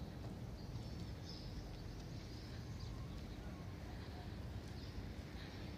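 Outdoor background ambience: a steady low rumble with faint, scattered bird chirps.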